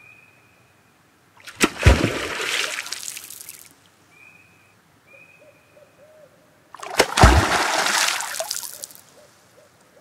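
Beaver tail slaps on water: two loud, sharp slaps about five seconds apart, each followed by a couple of seconds of splashing as the water falls back. A tail slap is a beaver's warning signal.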